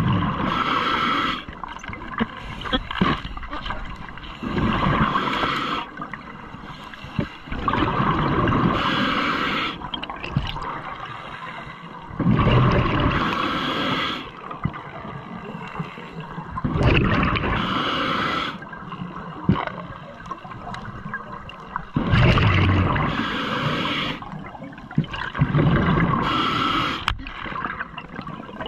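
Scuba regulator breathing heard underwater: a gurgling burst of exhaled bubbles about every four seconds, each lasting a second or two, with quieter stretches between breaths.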